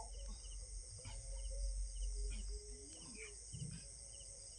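Steady high-pitched insect chirring, with a short double chirp repeating about twice a second.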